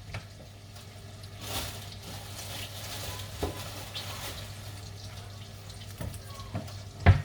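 Chicken frying in a pan, a steady quiet sizzle, with a couple of short knocks near the end.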